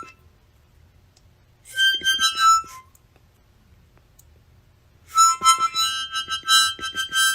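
Reedy musical tones sounding together as chords, in two bursts: a short one about two seconds in and a longer one from about five seconds in.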